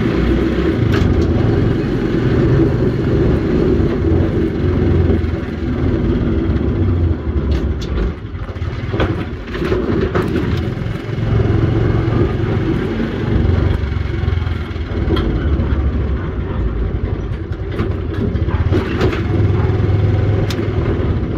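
Engine of the vehicle carrying the camera, running as it drives slowly along a street; its low hum eases off briefly about eight seconds in and then picks up again. A few short knocks or rattles sound over it.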